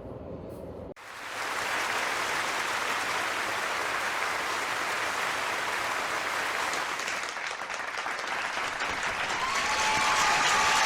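Crowd applause that starts abruptly about a second in and continues as a dense, steady clapping. A few high drawn-out tones rise over it near the end.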